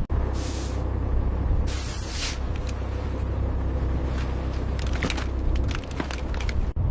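Crab boat's engine running with a steady low rumble, with two short hissing rushes early on and a run of sharp knocks and clatter in the second half, as pots and gear are worked on deck.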